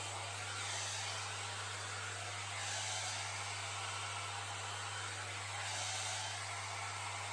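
Jomarto hot-air dryer and volumizer brush blowing: a steady rush of air over a constant low motor hum, swelling slightly a few times as the brush moves through the hair.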